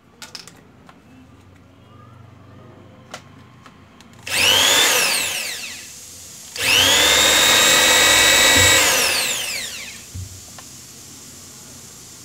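Corded electric drill boring a hole, run twice: a short burst about four seconds in that spins up and winds down, then a longer run of about three seconds held at steady speed before winding down. A few light clicks of handling come before the first run.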